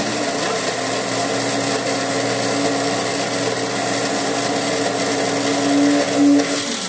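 An electric kitchen appliance's motor runs steadily with a low hum, switched on and off abruptly, and grows briefly louder about six seconds in.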